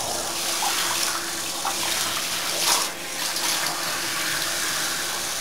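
Water running from a handheld shower head and splashing onto a wet cat in a bathtub, with a brief louder splash a little past halfway.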